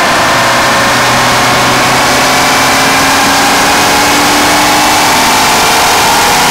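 Jeep Wrangler's 3.6-litre Pentastar V6, still on its stock intake and exhaust, running on a chassis dyno for a baseline pull, its revs climbing steadily under load. Mixed with the noise of the big off-road tyre spinning on the dyno roller.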